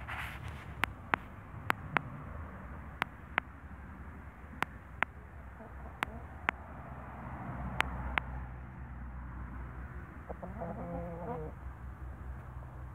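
A Brahma chicken gives a short, low clucking call about ten seconds in. Before that, sharp clicks come in pairs every second or so, and these are the loudest sounds.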